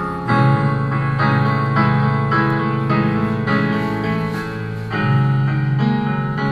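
Piano playing a song's opening chords, the chords changing at a steady pace of about two a second.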